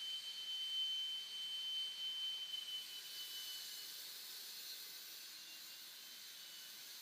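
A wall chaser and a dust extractor running: a steady high-pitched electric motor whine that fades about three and a half seconds in, leaving a steady hiss.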